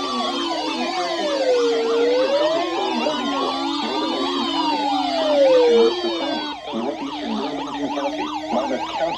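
Several sirens sounding at once: a slow wail rising and falling about every four seconds over fast yelping sweeps. The wail drops out about six seconds in, leaving the yelping.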